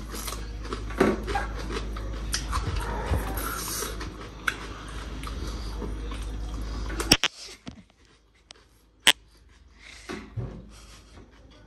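Close-up eating sounds: chewing and lip-smacking as people eat with their fingers. The background hum drops away suddenly about seven seconds in, and a couple of sharp clicks follow.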